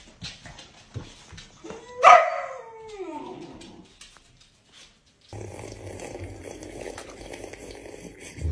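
Young boxer dog giving one loud, drawn-out bark-howl about two seconds in that falls in pitch as it fades.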